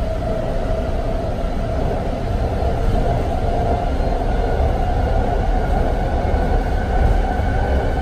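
A BART Fleet of the Future train running, heard from inside the car: a steady rumble with a whine that rises slowly in pitch as the train gathers speed.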